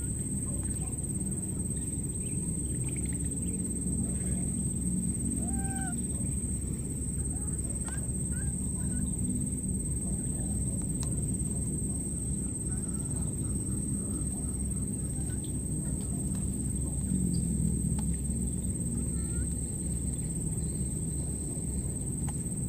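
Scattered short chirping animal calls over a steady low background noise, with a thin steady high-pitched whine throughout.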